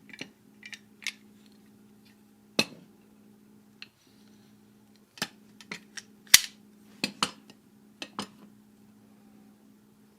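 Sharp metallic clinks and knocks of tools or hardware being handled, about a dozen spread irregularly, the loudest about two and a half seconds and six seconds in, over a steady low hum.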